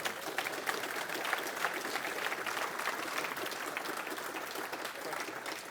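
Lecture audience applauding steadily, a dense patter of many hands clapping at the end of a talk.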